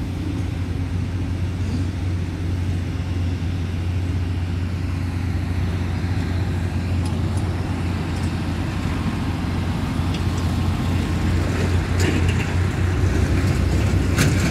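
Heavy diesel engine of a motor grader idling steadily with a deep, even hum, and a few sharp clicks near the end.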